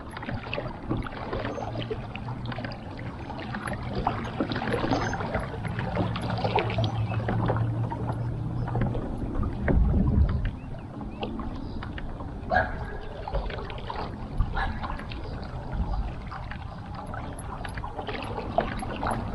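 Pedal kayak under way: water splashing and gurgling around the hull and drive, with a steady low hum that stops about nine seconds in and a low bump about a second later.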